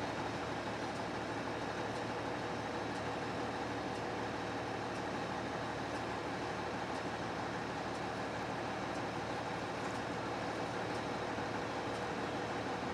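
Steady vehicle noise: an even rumble and hiss with a faint constant hum, unchanging throughout.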